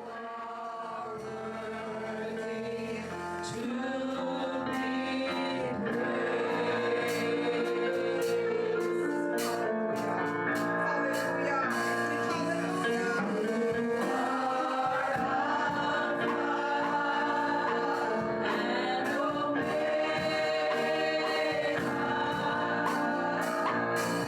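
Gospel worship song: a group of singers in harmony over keyboard and instruments, swelling in loudness over the first few seconds, with cymbal hits further on.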